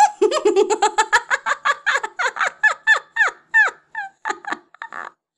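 A woman's gloating cackle: a rapid run of short 'ha' pulses, each dropping in pitch, that slows and fades away over about five seconds.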